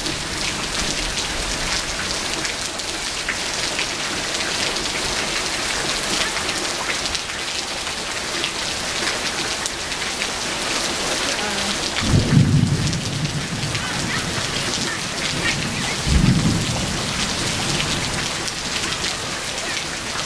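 Heavy downpour hissing steadily. Two brief low rumbles break through it, about twelve and sixteen seconds in.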